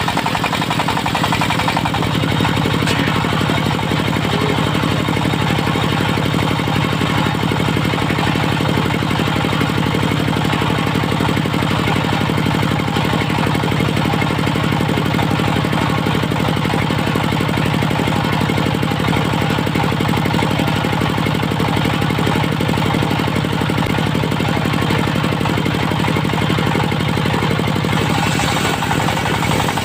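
Diesel engine of a locally built mobile circular sawmill running steadily with a fast, even beat.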